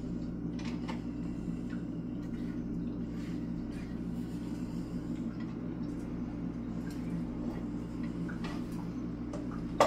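A spoon scraping and tapping faintly against a saucepan as thick sauce is scooped out, over a steady low hum.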